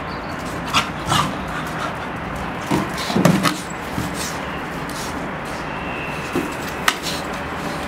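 Black Labrador Retriever puppy playing with a sock-covered plastic bottle on a string: scattered short knocks and scrapes as it grabs and bats the bottle, and a short puppy vocalisation about three seconds in, the loudest sound. A steady background hiss runs underneath.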